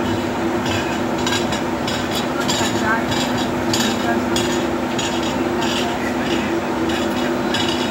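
Blue Indian Railways passenger coaches running past at speed: a steady rumble of steel wheels on rail with a low hum, broken by irregular clicks and clanks from the wheels and bogies.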